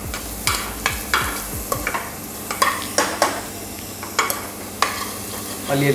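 A slotted spoon scraping and knocking against the inside of a pressure cooker as chopped vegetables are stirred, with the low sizzle of the vegetables frying in ghee underneath. The scrapes come irregularly, several a second at times.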